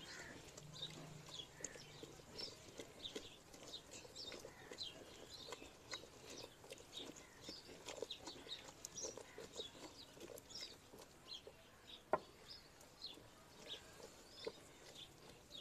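Faint chirping of birds, many short high calls scattered throughout, with small soft ticks and one sharp click about twelve seconds in.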